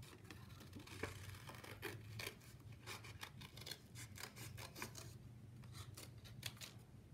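Scissors snipping through construction paper, faint: many short cuts in a row, with the paper rustling as it is handled.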